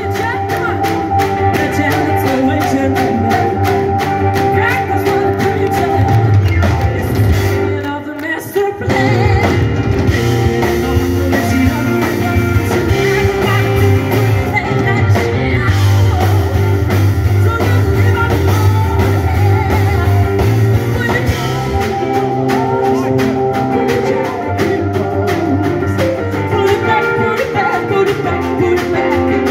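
Live soul and blues-rock band playing, with a female lead singer over electric guitar, drum kit and keyboards. The band drops out briefly about eight seconds in, then comes back in.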